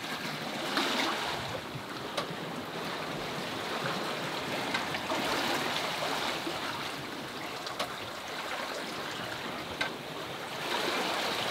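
Sea water rushing and splashing along the hull of a sailboat under sail, with wind, as a steady wash. A few light clicks from the boat come through it.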